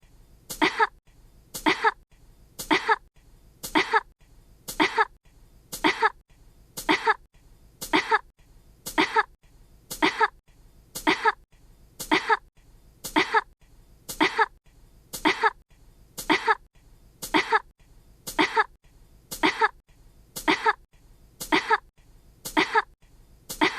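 Coughing: short coughs repeating about once a second in an even, unbroken series, each one nearly identical to the last.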